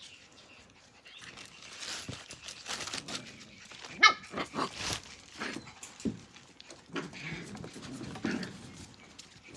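Australian Cattle Dog puppies playing, with scuffling and small vocal noises, and one sharp high-pitched yip about four seconds in.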